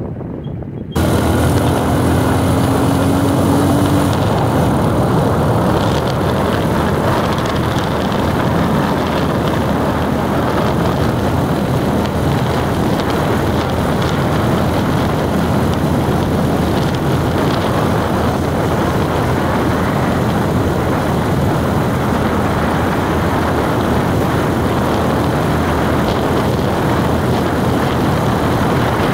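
A vehicle on the move: steady road and wind noise that starts suddenly about a second in, with an engine note rising slightly in pitch over the next few seconds.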